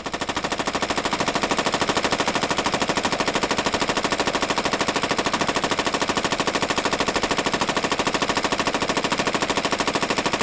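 HK21E 7.62 mm belt-fed machine gun firing one long unbroken burst of rapid, evenly spaced shots, part of 500 rounds fired without interruption to show the weapon's reliable operation.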